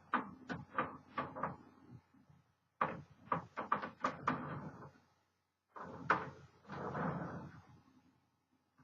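1936 Underwood Universal manual typewriter being worked: three runs of sharp mechanical clacks separated by short pauses, with a longer rasping, ratcheting stretch in the last run.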